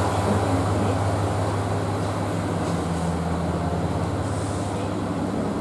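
Steady low hum of a KiHa 40 diesel railcar's engine idling while the train stands at the platform before departure, heard inside the passenger car.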